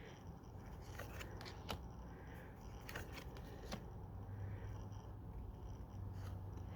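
Faint clicks and rustles of Pokémon trading cards being handled and slid one behind another in the hand.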